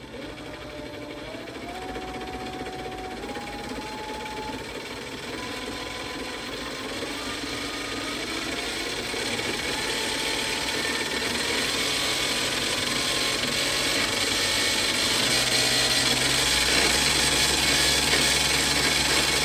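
Hangkai 48V 1200 W electric outboard motor, run on a 52-volt battery, spinning up to full throttle. Its whine climbs in small steps and grows steadily louder as the prop reaches over 8,500 RPM.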